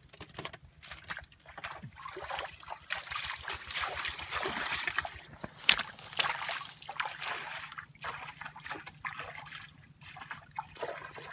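Bare feet wading through shallow muddy water, with irregular splashing and sloshing. A sharp splash a little before six seconds in is the loudest moment.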